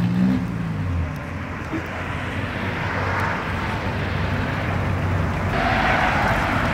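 Cars rolling slowly out of a parking-lot exit: a low engine hum under a growing hiss of traffic. About five and a half seconds in, the sound changes abruptly to a louder, hissier mix of engine and road noise.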